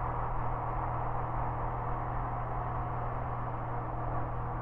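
Single-engine light airplane's piston engine droning steadily in cruise flight, heard from inside the cockpit as an even hum with no change in pitch.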